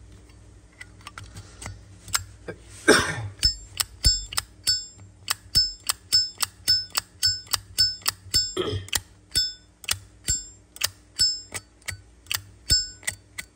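Brass Zippo lighter lid being flipped open and snapped shut over and over, a rapid run of sharp clicks, about three a second, many with the short metallic 'clink' ring of the hinge and cam. Two brief scraping noises come around three and nine seconds in.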